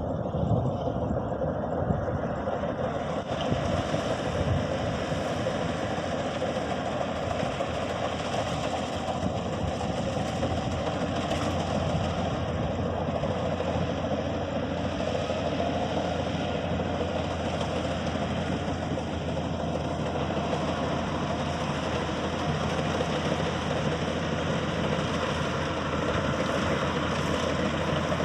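Engine of a Maxxi Bimo 102 Top combine harvester running steadily, with a constant hum and machine noise.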